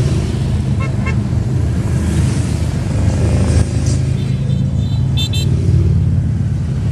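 A procession of motorcycles riding past with their engines running in a steady low rumble. A horn gives two short double beeps, about a second in and again a little after five seconds.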